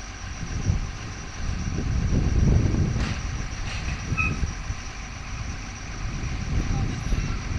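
Heavy diesel machinery rumbling, swelling louder about two seconds in and again near the end, as an excavator works.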